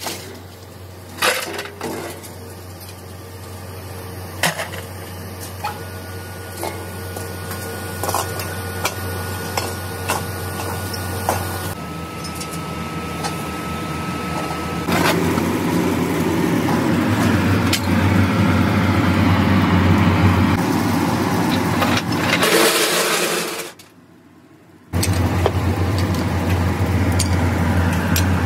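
Scrap metal pieces clanking and knocking as they are dropped into a steel hopper, over the steady hum of running machinery.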